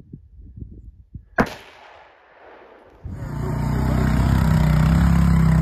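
A single rifle shot about a second and a half in, sharp and loud with a short fading tail. From about three seconds, an ATV engine running steadily.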